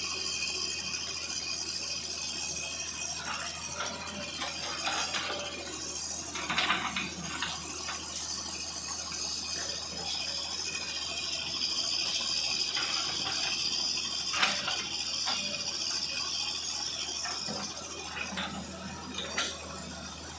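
Hitachi excavator at work clearing land: a steady low engine drone under a high hiss, with sharp cracks and knocks every few seconds.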